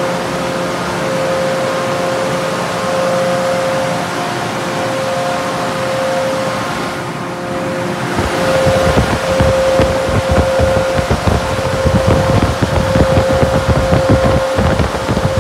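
Car wash air dryers (a PDQ bay's original onboard-style blowers) running with a steady whine over rushing air. From about halfway through, wind buffets the microphone with a low rumble.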